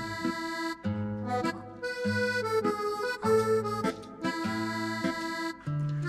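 Background music: an instrumental tune whose bass line changes note about once a second.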